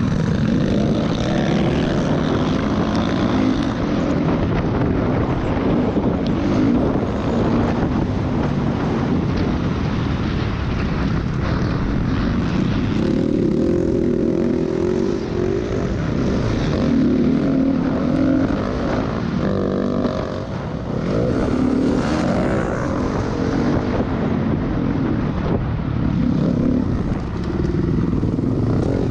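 Dirt bike engine running under throttle through corners, revving up and down in pitch as it accelerates and backs off.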